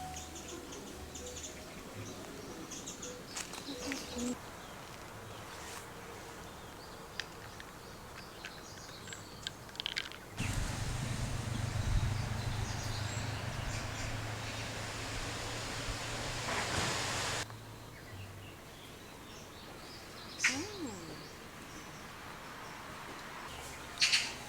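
Quiet outdoor ambience with scattered bird chirps. For about seven seconds in the middle, a steady rushing noise with a low hum comes in suddenly and cuts off just as suddenly.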